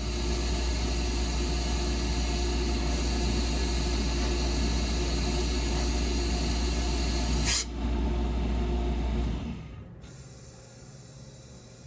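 Ingersoll Rand UP6-10-125 10 hp rotary screw air compressor running with a steady loud hum and hiss, with a brief sharp hiss about three quarters through. About nine and a half seconds in, the running stops and a much quieter low hum remains.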